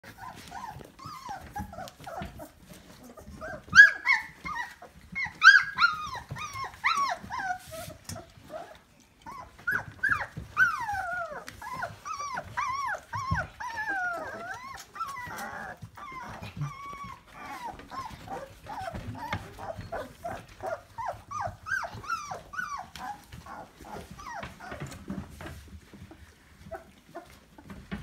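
A litter of 24-day-old Labrador retriever puppies squeaking and whining in many short, falling calls, with a brief lull about nine seconds in. The loudest squeals come around four to six seconds in.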